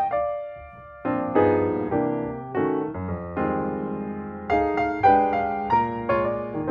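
Background piano music, with chords struck one after another and left to ring out.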